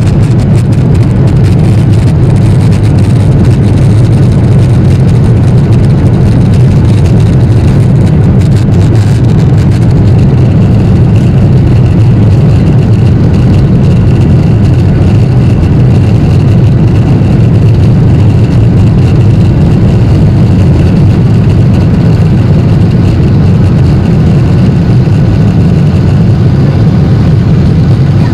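Steady low cabin noise of a Boeing 737-800 in cruise: airflow and the CFM56 turbofans heard from inside the passenger cabin, unchanging throughout.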